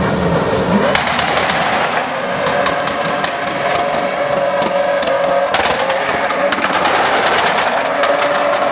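White Toyota Land Cruiser-type SUV doing a smoky burnout and slide: the engine is held at high revs, the wheels spin on the asphalt, and a fast crackling rattle runs through it. A steady high squeal joins after about two and a half seconds.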